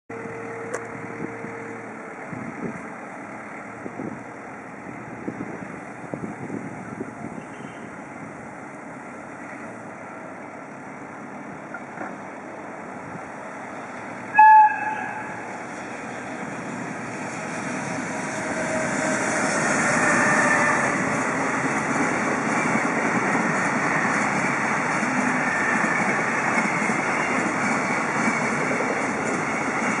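A short blast of the EF210 electric locomotive's AW-2 air whistle about halfway through, then the loaded freight train approaching and passing with a rising rumble that stays loud and steady. Before the whistle, scattered knocks from track work.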